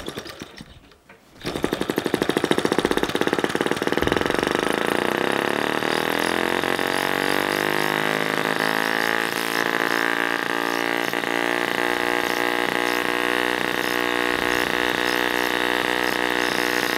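Model split-cycle two-stroke, water-cooled, catching about a second and a half in. It runs with rapid, even firing, picking up a little speed over the next few seconds and then holding steady.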